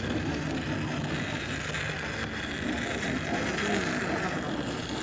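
Battery-powered toy train running steadily along a plastic track, its small electric motor and gears whirring without a break.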